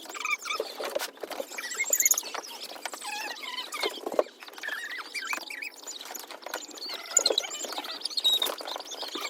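Five-week-old German Shepherd puppies squeaking and whimpering, a steady chatter of many short high cries, with small clicks and scuffles among them.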